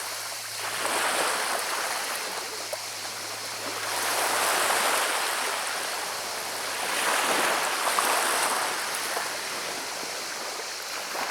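Sea waves washing up and back over a shingle beach, swelling about every three seconds, with the clatter of pebbles rolled by the water.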